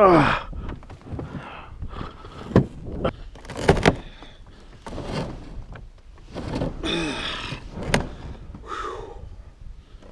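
A plastic kayak and its paddle breaking through thin plate ice: crunching and scraping of ice against the hull, with sharp cracks about two and a half and four seconds in and again near eight seconds. A few short creaks fall in pitch, the loudest right at the start.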